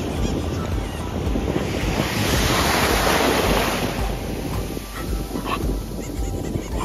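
Small sea waves breaking and washing up a sandy shore, one surge swelling up about two seconds in and fading after four, with wind rumbling on the microphone.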